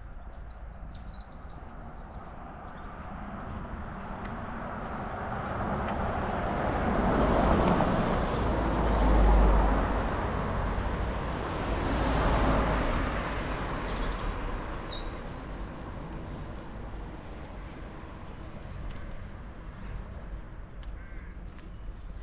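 Road traffic: a few vehicles pass close by one after another, their tyre and engine noise swelling to a peak in the middle and then fading away. Small birds chirp briefly near the start and again later.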